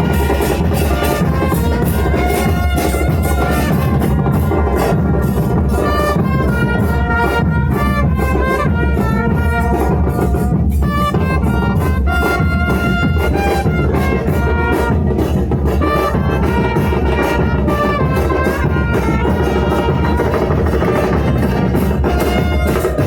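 Music with brass and drums, playing continuously at a steady loud level.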